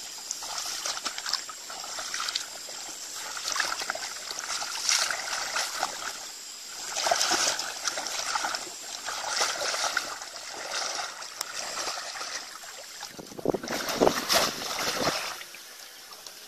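Shallow muddy water splashing and sloshing in uneven surges as a person wades through it, with the loudest splashing about halfway through and again near the end.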